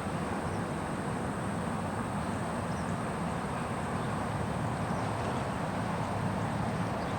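Steady low rumble of background noise with a faint high-pitched whine above it and no distinct events.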